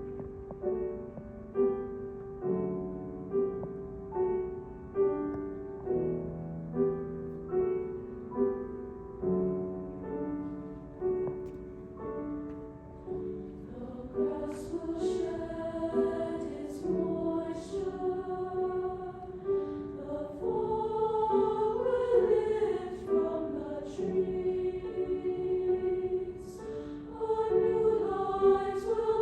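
A piano plays a gentle repeated accompaniment figure, with struck notes dying away about once a second. About halfway through, a high school choir enters singing over it.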